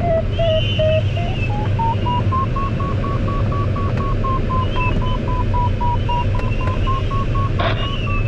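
Glider variometer beeping in short even pulses, about three a second, its pitch climbing steeply about two seconds in and then wavering high: the sign of the glider climbing in lift. A steady rush of airflow runs underneath.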